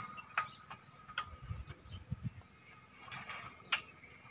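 Four sharp clicks and knocks spread through, with a few soft low thuds in between.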